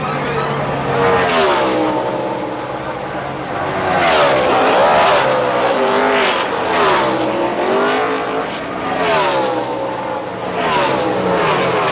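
NASCAR Sprint Cup V8 stock cars going by one after another at speed, each engine note sweeping up and then down in pitch as it passes.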